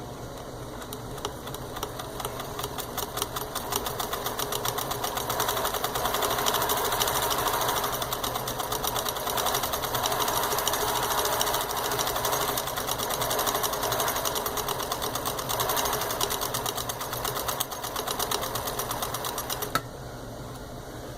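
Pfaff 362 zig-zag sewing machine stitching one of its built-in patterns: a fast, even run of needle strokes that picks up speed over the first few seconds and stops sharply near the end.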